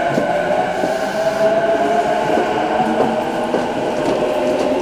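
Electric commuter train of the JR Nambu Line moving along the platform: a steady whine over continuous wheel and rail noise.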